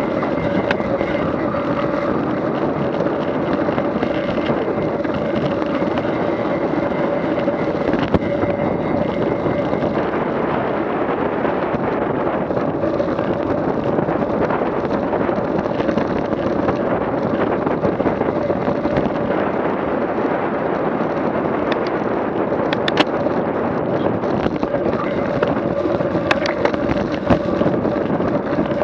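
A vehicle engine running at a steady speed under wind noise on the microphone, with a few sharp clicks in the second half.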